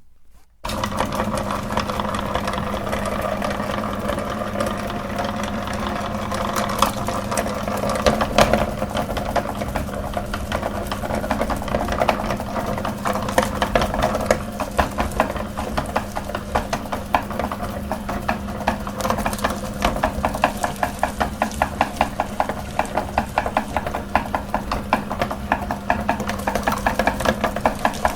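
Meat grinder switched on about half a second in, its motor running with a steady hum while it crunches and cracks candy through the auger; in the second half the cracking turns into a regular, rapid knocking.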